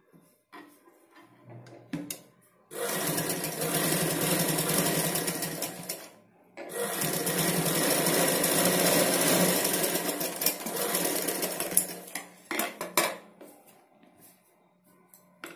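Domestic straight-stitch sewing machine stitching cotton blouse fabric in two steady runs of a few seconds each, with a brief stop about six seconds in. A few knocks and clicks follow near the end.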